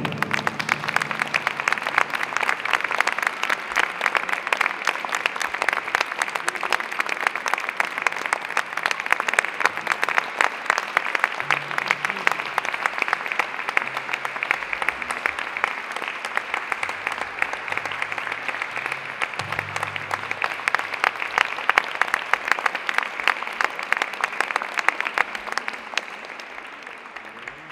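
Audience applause, dense steady clapping that begins as the orchestra's piece ends and dies away near the end.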